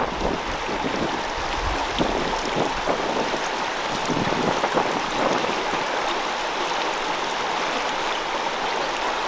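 Steady rush of flowing stream water, with some low rumbles in the first half.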